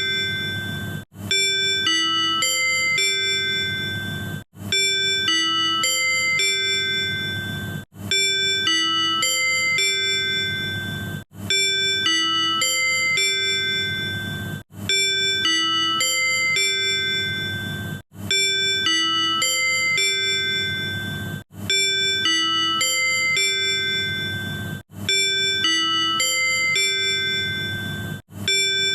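Tobu 100 series Spacia's manual on-board chime, the signal that comes before a conductor's announcement or on-board sales notice. A short phrase of several chime notes is looped, repeating about every three and a half seconds with a brief break between repeats, over a low steady hum.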